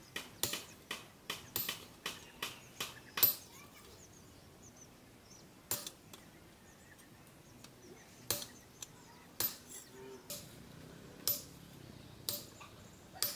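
Hammer blows on a steel knife blade, made from a car leaf spring, through a chisel and top tool set on a small anvil: a fast run of sharp metallic strikes in the first three seconds, then a pause, then single strikes about once a second, some with a brief high ring.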